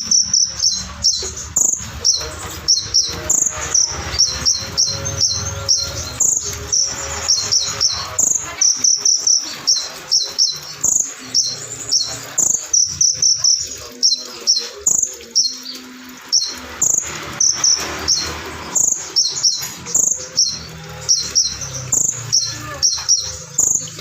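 A konin (kolibri ninja sunbird) singing a fast, unbroken string of sharp, high chirps and trills, several notes a second.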